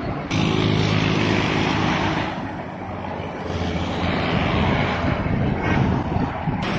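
Diesel locomotive engine running with a steady low drone, over outdoor noise. The sound changes abruptly just after the start and again partway through.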